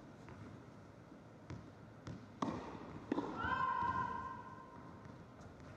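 Tennis ball struck twice by racket strings about two-thirds of a second apart, a serve and its return, in an indoor hall. A high pitched squeal lasting just under a second follows.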